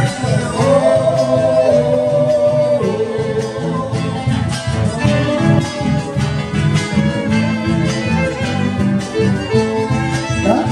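Argentine folk band playing live: two violins, a bandoneon and an acoustic guitar over a steady bass and drum beat.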